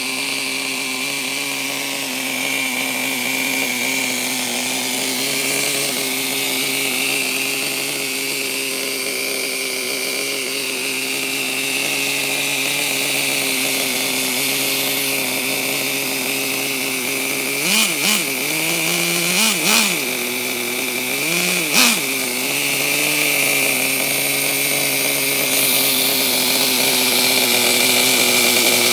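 Small engine of a 2001 Temaxx that had sat unused for ten years, running at a steady idle and revved briefly a few times about two thirds of the way through.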